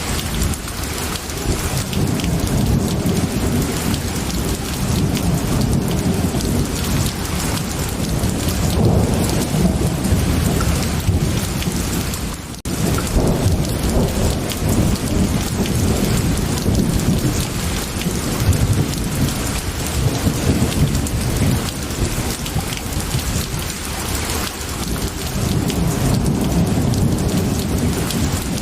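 Steady heavy rain with low rolling thunder rumbling in slow swells. The sound briefly drops out for a moment about twelve seconds in.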